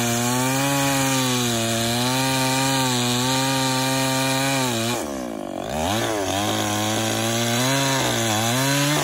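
Handheld chainsaw cutting through a tree limb, its motor running at a steady high speed with slight wavers in pitch as the chain bites the wood. About five seconds in the motor winds down briefly, then speeds up again and dips in pitch a few times under load.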